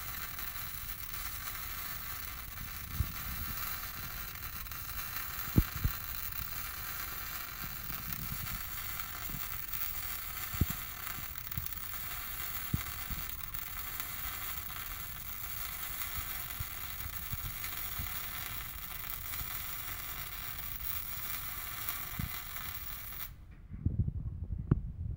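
MIG welding arc on steel, hissing steadily with occasional sharp pops as the bead is laid, until the arc cuts off abruptly about 23 seconds in. A few knocks and clatter of the torch and workpiece follow.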